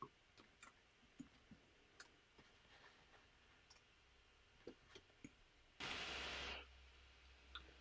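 Near silence with a few faint clicks of plastic LEGO bricks being pressed together onto the model, and a brief soft hiss about six seconds in.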